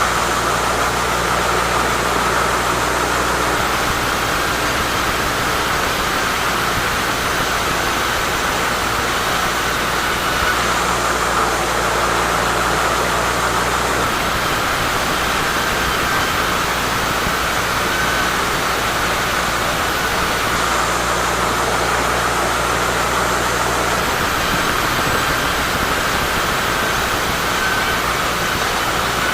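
Sawmill saw running steadily as it cuts a teak log: a continuous even machine noise over a low engine hum that drops away in the middle and comes back.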